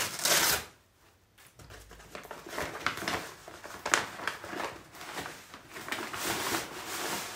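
Plastic courier mailer bag crinkling and rustling as it is pulled open and handled. There is a loud stretch at the start, a short lull, then uneven crinkling with one sharp crackle about four seconds in.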